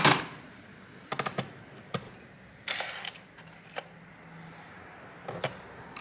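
Light clicks and taps of a screwdriver and small screws against the plastic bottom cover of an Asus VivoBook X507U laptop as the case screws are put back in, with a short rustle about three seconds in.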